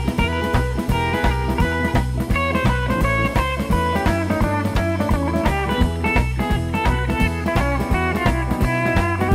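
Instrumental rock music, a guitar-led break with bass and drums over a steady beat.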